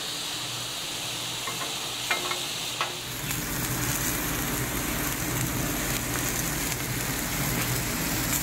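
Zucchini spears sizzling steadily in avocado oil on a Blackstone 36-inch flat-top griddle, with a few short clicks of metal spatulas against the steel in the first three seconds.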